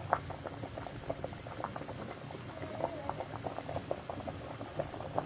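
Spaghetti at a rolling boil in a metal pot of water: a steady bubbling with many small, irregular pops, one louder pop just after the start.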